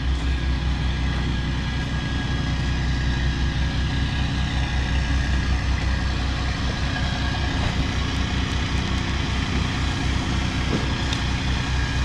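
Diesel engine of the skid steer running steadily, driving the hydraulic concrete line pump. A thin steady whine sits above the low engine drone.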